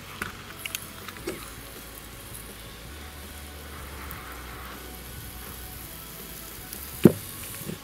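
Hot metal ball sizzling as it melts and burns into a rubber chicken toy, a steady hiss with a few sharp clicks in the first second or so. A loud knock comes near the end.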